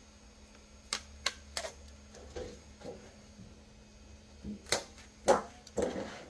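Handling noise on a 3D printer bed: three quick sharp clicks, then a few louder taps and short scrapes as hard plastic printed brackets and the flexible textured build sheet are moved about.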